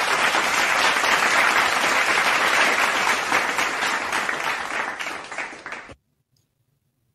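Recorded applause sound effect: a crowd clapping, fading a little near the end and then cutting off suddenly about six seconds in.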